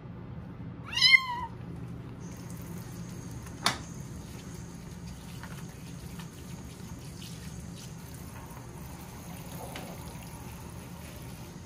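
A kitten meows once, a short call about a second in. A single sharp knock follows a couple of seconds later, over a steady low background hum.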